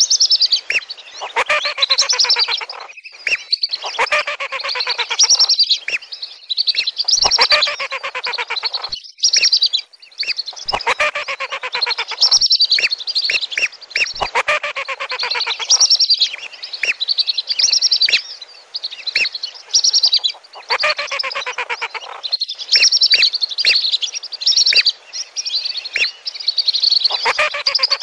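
Lesser and wandering whistling ducks calling, played as a lure call for these ducks: dense choruses of shrill whistled notes in bursts of a second or two, repeated over and over with brief gaps.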